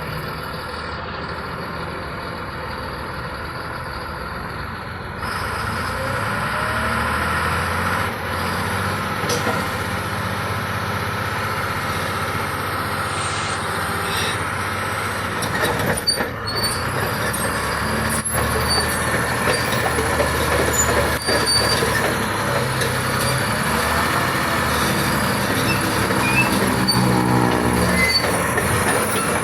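Caterpillar D6T crawler bulldozer's diesel engine running steadily. It gets louder about five seconds in, and a few short knocks come through later.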